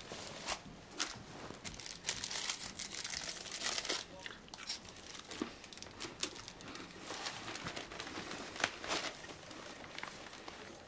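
Newspaper rustling and crinkling as it is handled, a dense run of paper crackles in the first few seconds and a few sharper crackles later on.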